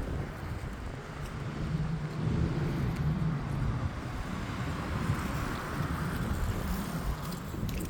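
Strong wind gusting, buffeting the microphone with a low rumble that swells and eases.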